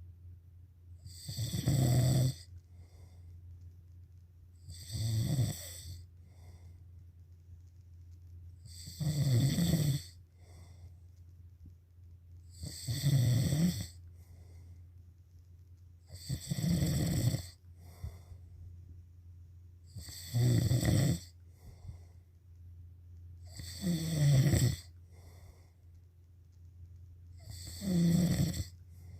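Steady snoring, one loud snore about every four seconds, each lasting about a second, eight in all. A low steady hum runs underneath.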